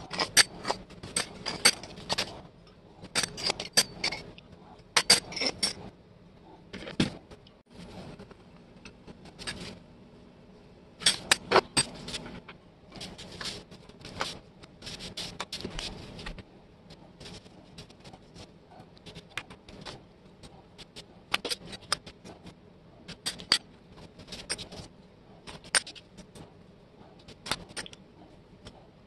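Small metal parts of an antique label paster (pronged discs, spacer tubes, shaft) clinking and tapping against each other and the bench as they are handled and set down: irregular sharp clicks, busiest in the first few seconds and again about eleven seconds in, then sparser.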